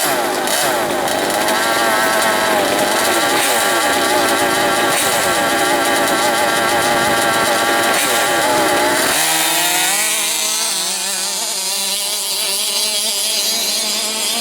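Small two-stroke petrol engine of an FG large-scale radio-controlled monster truck, revving up and down over and over as it is driven. About nine seconds in the sound thins and gets a little quieter, and the pitch keeps wavering.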